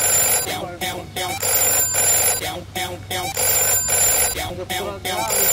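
Mobile phone ringing: bursts of ringing about a second long, repeating roughly every two seconds, with shorter wavering tones between the rings.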